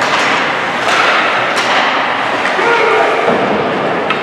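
Ice hockey game in a rink: a few sharp knocks and thuds of play over a steady din of voices calling out in the large hall.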